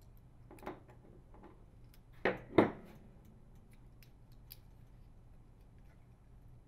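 Needle-nose pliers squeezing the locking tabs of a plastic bath fan light receptacle as it is pushed out of its metal bracket: a small click about half a second in, then two sharp clicks close together a little over two seconds in as the receptacle releases, followed by a few faint ticks of handling.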